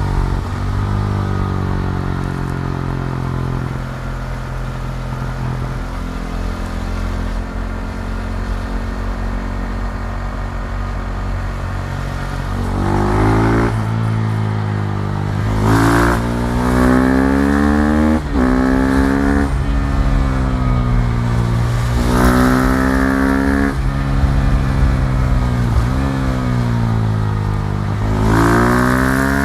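KTM 390 Duke's single-cylinder engine running. For the first dozen seconds it holds a fairly steady pitch; after that it revs up again and again, the pitch rising and then dropping sharply at each gear change.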